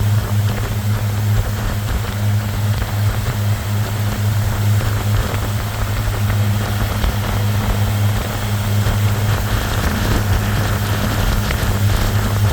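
A canoe's motor running steadily with a constant low hum, over a hiss of wind and water.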